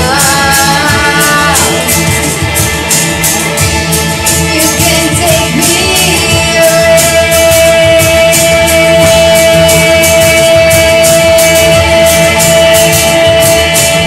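Live band playing: female lead vocal, electric guitar and drum kit with steady cymbal strokes. Singing at the start, then a long high note held steady from about six seconds in.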